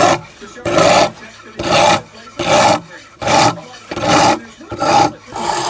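Steel kitchen-knife blade rasped by hand in steady back-and-forth strokes across a coarse diamond sharpening plate, about seven strokes, one every 0.8 seconds or so, reprofiling a very dull edge.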